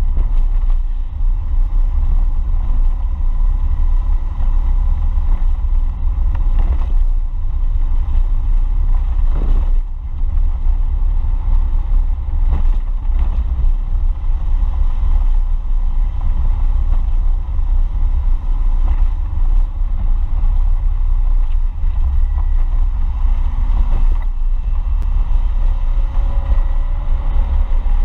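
Toyota AE86 Sprinter driving along, heard from inside the cabin: a steady deep rumble of engine and road noise, dipping briefly about ten seconds in.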